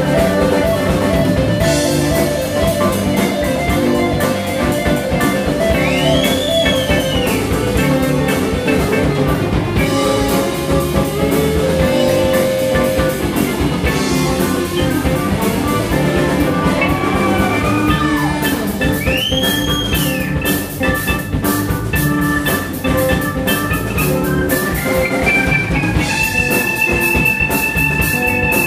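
Live blues-rock band playing an instrumental passage: an electric guitar lead over drum kit and keyboard. Twice the lead bends a note up and back down, and near the end it climbs to a long held high note.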